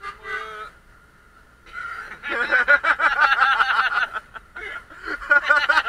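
A person's voice making rapid, repeated pitched syllables without clear words. It comes in three stretches: a short one at the start, a longer run of about two seconds, and another near the end. A faint steady whine runs underneath.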